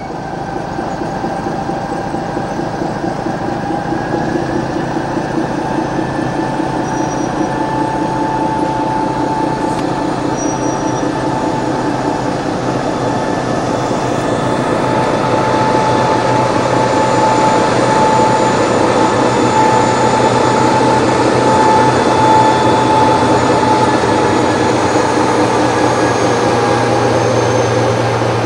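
Slow-rolling freight wagons passing close by, their wheels squealing on and off. The diesel-hydraulic engine of an LDH-Faur shunting locomotive grows louder as it draws near toward the end.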